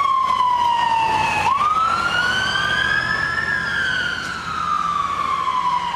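Emergency vehicle siren in a slow wail: the tone falls, climbs again from about a second and a half in, then falls slowly once more, over a low steady hum.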